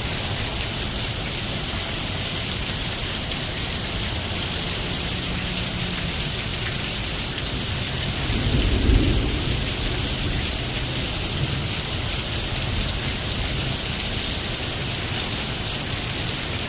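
Steady rain falling, an even hiss throughout, with a low rumble of thunder swelling briefly about halfway through.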